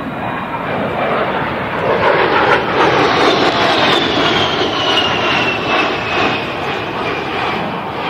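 A-10 Warthog jet passing low overhead, its twin turbofan engines giving a roar that swells about two seconds in and then eases off, with a high whine that falls in pitch as it goes by.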